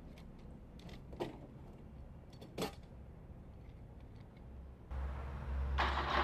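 Two sharp metallic clanks about a second and a half apart over a faint low hum. About five seconds in, the low rumble of an approaching diesel railcar train sets in and grows louder.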